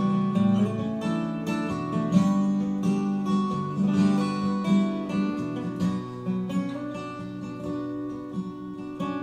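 Acoustic guitar strumming chords in an instrumental break of an acoustic pop song, with no vocals.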